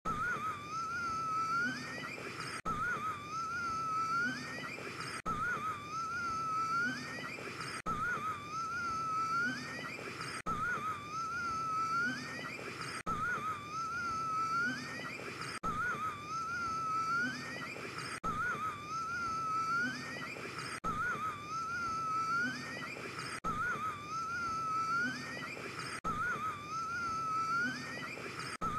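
A man's wheezing gasp for breath, one short clip looped over and over about every two and a half seconds, each gasp wavering and then rising in pitch at its end.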